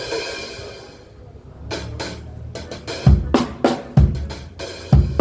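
Acoustic drum kit played during a soundcheck: a cymbal rings out at the start, then a beat of sharp strikes with three heavy low drum hits about a second apart from about three seconds in.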